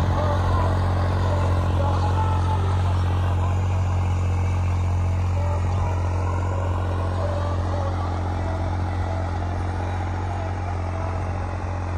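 New Holland 5620 diesel tractor engine running steadily under load while pulling a fully opened 20-disc harrow through tilled soil. The drone is steady and fades slightly as the tractor draws away.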